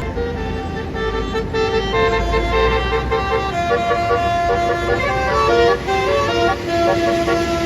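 Bus 'basuri' telolet musical horn playing a quick melody of shifting notes, several pitches sounding together.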